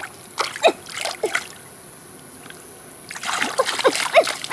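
Hands splashing and scooping water in a shallow muddy pool: a scatter of short splashes and plops that turn busier and more frequent for the last second or so.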